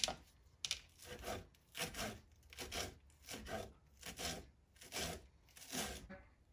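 Kitchen knife chopping fresh parsley on a plastic cutting mat over a wooden board: a steady run of short scraping chops, about two a second, stopping just before the end.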